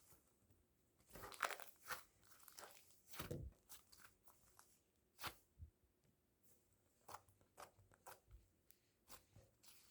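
Faint, irregular crunches and clicks, about a dozen scattered through, loudest about a second and a half in.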